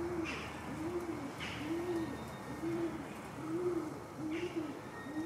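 A dove cooing in a steady series: about seven identical coos, each rising then falling in pitch, roughly one every 0.8 s. A few brief, high, falling chirps from another bird come in between.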